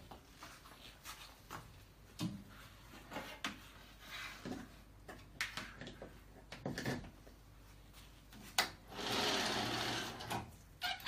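Scattered knocks and clicks from handling a large-format inkjet printer and its print-head carriage. Near the end a sharp knock is followed by about two seconds of steady mechanical whirring from the printer.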